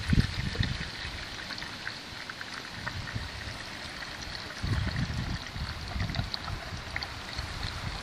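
A thin stream of water trickling from a hose nozzle into a plastic measuring container. Low rumbling comes in about halfway through.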